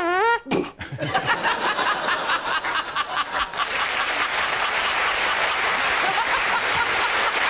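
A sung note ends in the first half second, then a studio audience and panel burst into laughter that swells into steady applause from about four seconds in.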